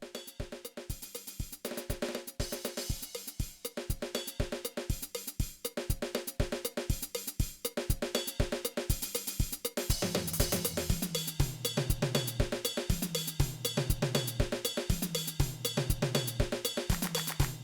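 Drum kit playing a steady groove with cymbals, Paiste crash cymbals among them, over backing music. About ten seconds in a bass line comes in and the cymbal wash grows heavier.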